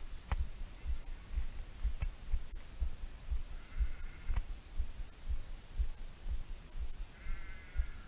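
Irregular low thumping and rumbling from a chest-mounted GoPro's microphone, a few thumps a second, with two short pitched calls, one about four seconds in and one near the end.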